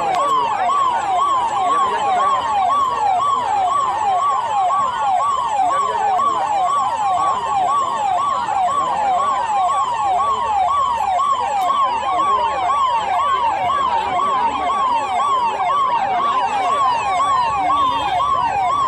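Electronic emergency-vehicle siren in a fast yelp, its pitch sweeping up and down about two and a half times a second at a steady level.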